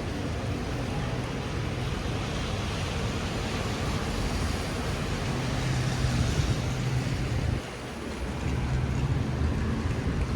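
Steady rain and city traffic on wet streets: an even hiss with a low engine hum underneath, dipping briefly about three-quarters of the way through.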